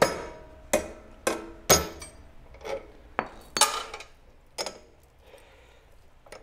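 Hammer blows on the steel axle end and washer of a small four-wheeler's rear hub, where the washer is stuck. There are four sharp metal-on-metal strikes with a short ring in the first two seconds. A few lighter knocks and clinks follow, and it goes quiet near the end.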